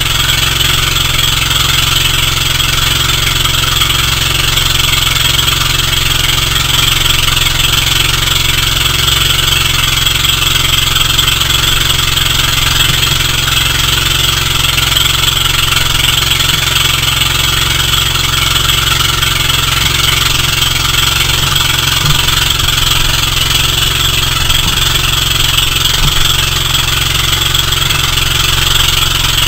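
Engine of a motorized bamboo-outrigger boat (bangka) running steadily under way, with a constant rush of water and wind.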